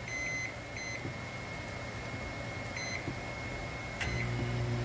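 Oster countertop microwave's keypad beeping three times as its buttons are pressed, then a click about four seconds in as the oven starts up and a steady low hum of it running.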